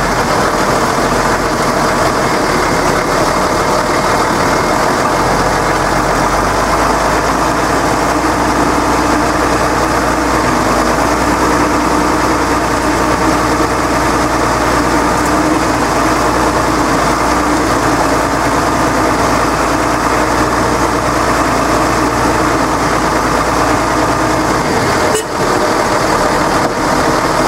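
Deutz-Fahr tractor's diesel engine running steadily while towing a vehicle on a strap, with a brief dip in the sound near the end.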